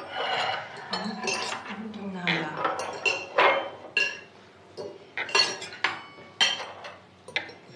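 Metal forks and knives clinking and scraping against porcelain plates as several people eat at a table: irregular sharp clinks, some ringing briefly.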